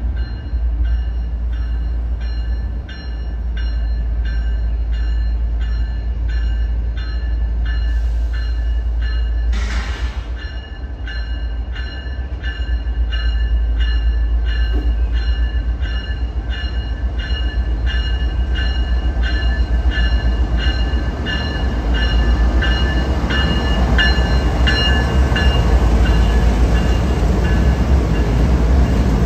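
Freight diesel locomotive's bell ringing steadily, about two strokes a second, over the rumble of the approaching train. The rumble grows louder near the end as the CSX lead locomotive and its double-stack container cars roll close past.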